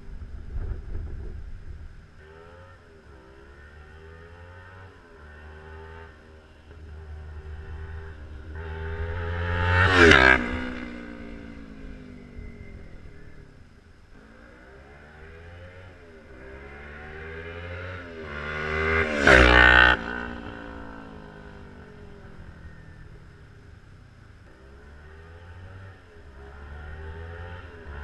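Kawasaki Ninja 300 parallel-twin with a Yoshimura exhaust passing at speed twice, about ten seconds in and again near twenty seconds. Each time the note rises as the bike approaches and drops as it goes by. Between passes the engine is heard from further off, revving up through the gears, and near the end it builds toward another pass.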